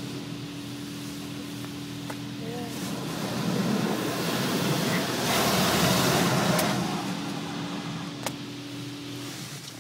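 Touchless automatic car wash spraying water jets over the car, heard from inside the cabin over a steady equipment hum. The spray hiss swells to its loudest about halfway through, then dies away.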